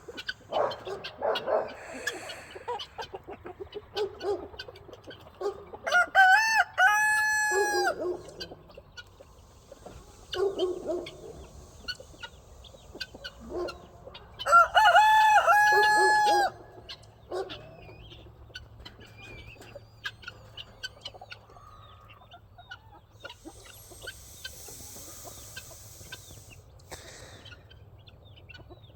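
A flock of chickens clucking, with a rooster crowing twice, about six seconds in and again about fifteen seconds in.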